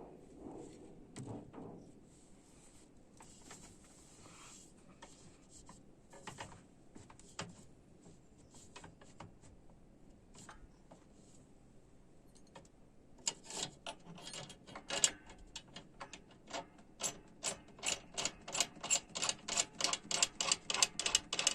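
Metal tension rods on a bass drum being turned into their lugs: a run of small metallic clicks, sparse at first, then from about halfway a quick regular ticking that reaches about four clicks a second.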